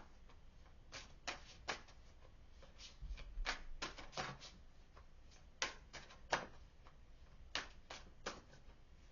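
Tarot cards being handled: a string of faint, irregular card flicks and slides.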